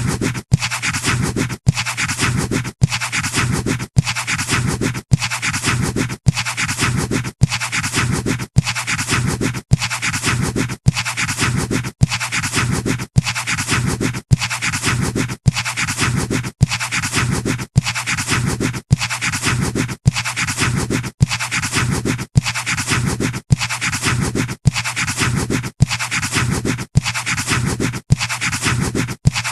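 Pencil scratching on paper as a looped sound effect: the same stretch of scratching repeats about once a second, each repeat broken by a brief gap.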